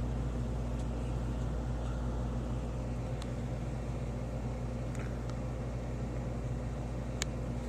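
Steady low mechanical hum over an even hiss, with a few faint ticks.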